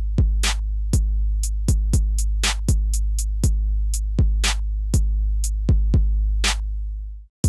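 A programmed drum pattern from Native Instruments Maschine playing back: kick, snare and hi-hat hits a few per second over a deep, sustained bass. It cuts off about seven seconds in and starts again right at the end.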